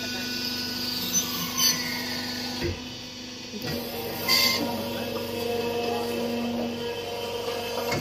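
Cement interlocking brick-making machine running with a steady hum, with several sharp metal knocks and clanks as its mould and lever are worked.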